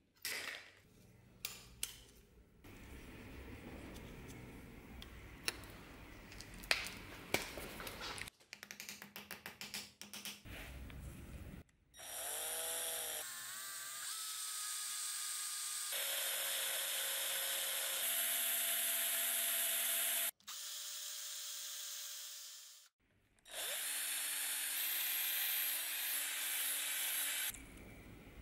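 Scattered clicks and knocks of handling, then a hand-held rotary tool running with a high whine as its small bit and burr cut into a leather spacer on a deer-antler knife handle. The tool starts about halfway through and runs in three spells, stopping and restarting between them.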